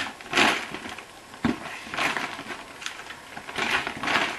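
Plastic food packaging crinkling and crackling as it is handled, in several short bursts, with a light thump about a second and a half in.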